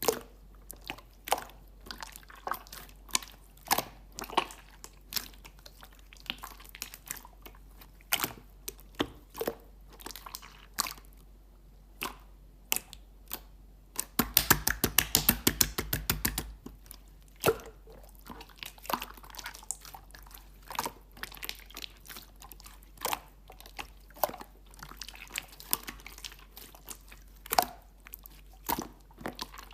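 Clear slime being squeezed and worked by hand, giving irregular sticky clicks and pops. About halfway through comes a quick run of pops, several a second, for a couple of seconds.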